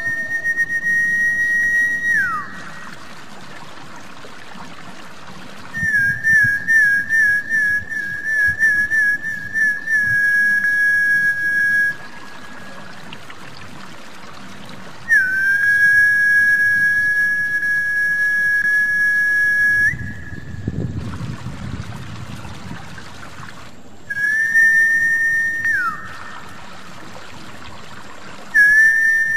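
Snakehead-fish lure whistling: high whistled notes in phrases of a few seconds, some held steady, one warbling, a couple ending in a falling glide. Trickling water fills the pauses between phrases.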